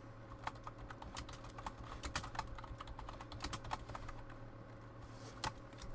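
Faint, irregular light clicks and taps of basketball trading cards being handled and slid off one another while being looked through, with one sharper click near the end.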